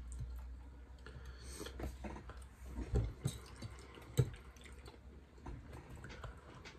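Close-up eating sounds: wet chewing and mouth noises from someone eating pasta with meat sauce, with a few louder smacks about three and four seconds in.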